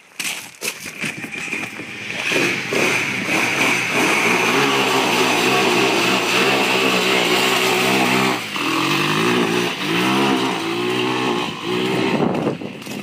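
Sport ATV engine running with several quick rev blips, the pitch rising and falling a few times in the second half.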